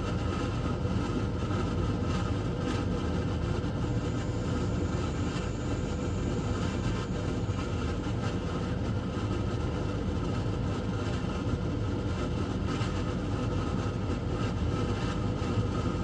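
12 V under-bunk air conditioner running steadily at about 600 watts, its fan pushing a strong airflow out of the vent pipes with a constant, even noise.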